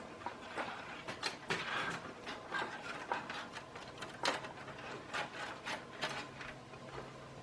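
Thin PC front-panel header cables being pulled and slid through a cable-routing hole in a PC case, giving irregular light rustles, scrapes and small clicks.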